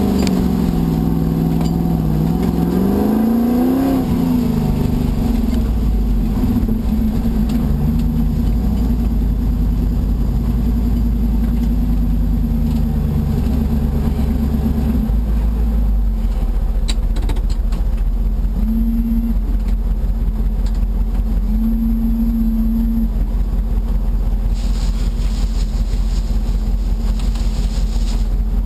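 Rover V8 engine of a Land Rover-based Tomcat off-roader driving over rough ground: revs dip and then climb a few seconds in, then hold fairly steady. There is a burst of hiss near the end.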